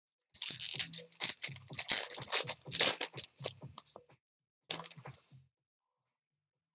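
Foil trading-card pack wrapper being torn open and crinkled in the hands: a dense crackling tear lasting about four seconds, then a shorter crinkle about five seconds in.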